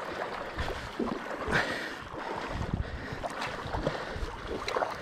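Running river water with irregular splashes from a hooked brown trout thrashing at the surface, the loudest about one and a half seconds in, and wind buffeting the microphone.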